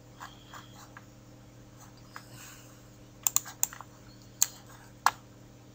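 Sharp clicks of a computer keyboard and mouse: a few faint ones, then a quick run of about four a little past three seconds in, then two louder single clicks, over a faint steady hum.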